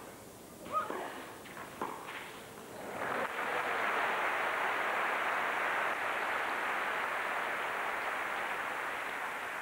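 A few tennis-ball strikes of a rally in the first seconds, then crowd applause from about three seconds in, holding steady to the end.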